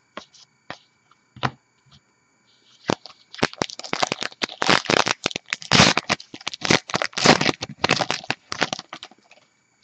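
A trading-card pack wrapper being torn open and crinkled by hand. A few light clicks at first, then a dense run of sharp crackles that lasts about six seconds.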